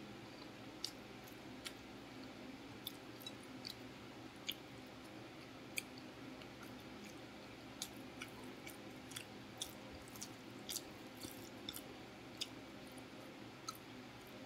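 Person chewing food close to the microphone, with irregular sharp mouth clicks and smacks over a faint steady background hum.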